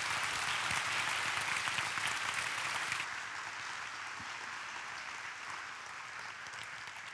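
Audience applauding: a dense, steady clatter of many hands clapping that eases a little about three seconds in.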